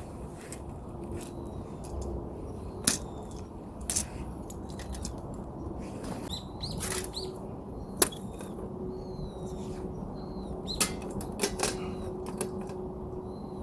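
Scattered sharp clicks and knocks over a faint steady low hum, with short high bird chirps, several in the second half.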